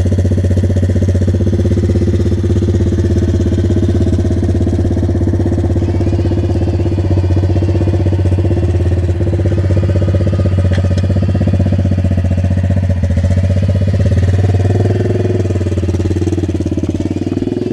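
Avantis 125 Classic pit bike's single-cylinder four-stroke engine idling steadily and loudly, with a small rise and fall in revs near the end.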